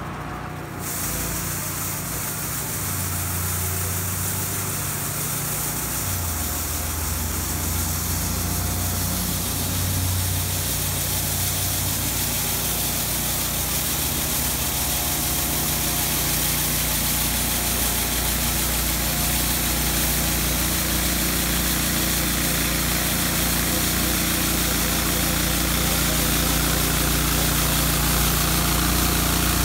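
Avant 225 mini articulated loader's engine running while its front angle broom spins and sweeps slush, a steady hum under a brushing hiss. The sound grows gradually louder as the machine approaches.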